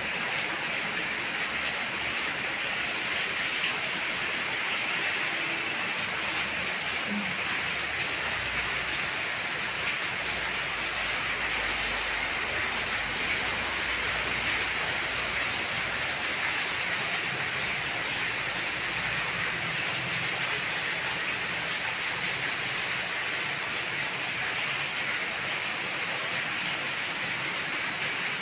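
Heavy rain pouring down steadily, an even hiss of rainfall, with a faint low rumble for several seconds midway.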